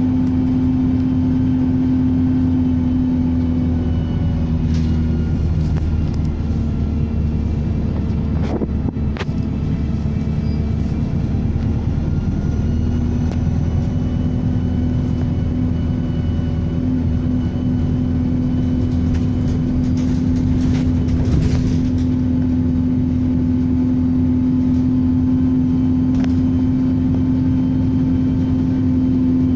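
Bus engine running steadily with a thin turbocharger whistle above it that drifts up and down in pitch. There is a brief clatter about eight and a half seconds in.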